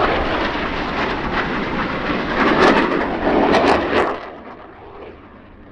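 Jet noise from Blue Angels F/A-18 Hornets passing by: a loud, rushing sound with sharp crackles that peaks about three seconds in, then drops off sharply about four seconds in and fades.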